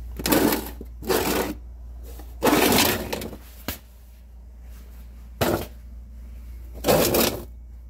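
A plastic rodent bait station scraped and clattered across a concrete floor as it is pulled out and handled: about five short scrapes, the longest a little over two seconds in.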